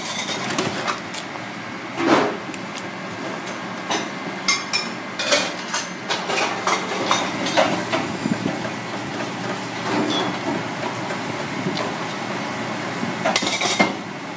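Scattered knocks and clicks of a kitchen knife striking a white cutting board as raw lobster meat is cut apart, over steady background noise.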